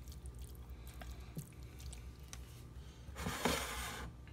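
Hands squishing and rubbing raw alligator meat in a wet soy marinade on a plate, with faint small squelches and clicks over a low hum. About three seconds in comes a louder rushing, scraping noise lasting under a second.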